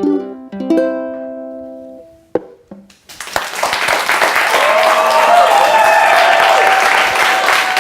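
Ukulele's last strummed chords ringing out and fading. About three seconds in, an audience breaks into loud, steady applause.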